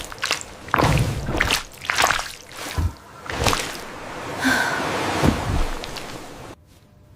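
Wet, sloshing and squishing food ASMR sounds in a run of irregular strokes with sharper clicks mixed in, breaking off briefly near the end.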